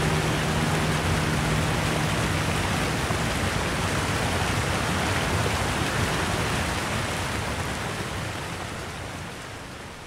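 Steady rush of a waterfall pouring into a rock pool, fading out over the last few seconds.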